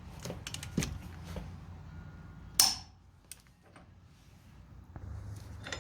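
Axle nut being tightened to 175 foot-pounds with a torque wrench: a run of small metallic clicks, then one loud sharp click about two and a half seconds in.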